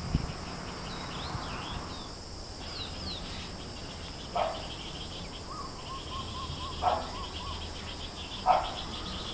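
Outdoor ambience of insects droning steadily at a high pitch, with birds chirping and a short trill. It opens with a brief thump, and three short calls come a couple of seconds apart in the second half.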